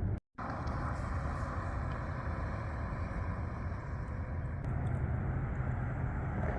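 Steady street traffic noise, a low even rumble and hiss of vehicles, broken by a brief moment of total silence just after the start.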